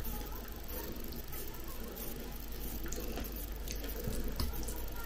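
Faint scattered clicks and soft squishing over a steady low room hiss: a fork working through mashed potato in a ceramic bowl.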